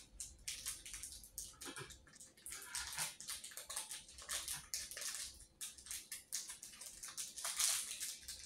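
Close-up eating sounds: a steady stream of short, irregular wet clicks and smacks from chewing and from fingers picking flesh off a smoked milkfish.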